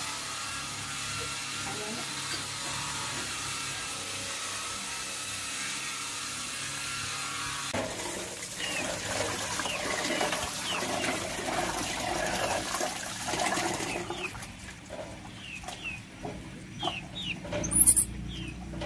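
Tap water running into a rice-cooker pot and hands splashing in the water to wash it. Short high chirps come and go throughout the second half.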